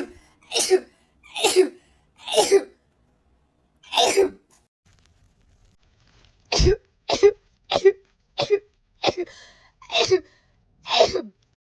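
A person sneezing in rapid succession: a run of about five sneezes, then after a pause of about two seconds a quicker run of about seven more, a sneezing attack.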